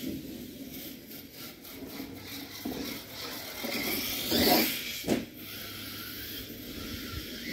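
HSP Savagery RC monster truck driving across a grass lawn, its motor and tyres getting louder as it passes about four seconds in. A single sharp knock follows about five seconds in.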